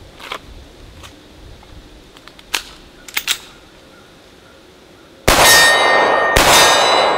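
A few small metallic clicks as the pistol is loaded, then two shots from a Sig P220 .45 ACP pistol about a second apart, each with the ringing clang of a hit steel target and a long echo.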